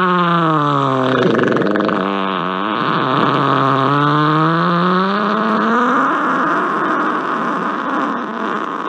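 A long, loud fart held for many seconds as one continuous pitched blast. Its pitch sinks and wavers about a second in, then climbs back up around the middle.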